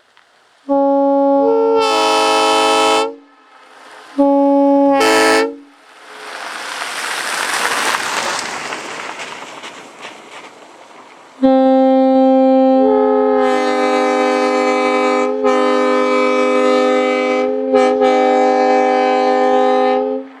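1952 Nathan AirChime M3R1 three-chime train air horn, still factory seal wired, sounding its chord on compressed air: two short blasts, then a long blast of about nine seconds that dips briefly twice. Between the short blasts and the long one, a hiss swells and fades for several seconds.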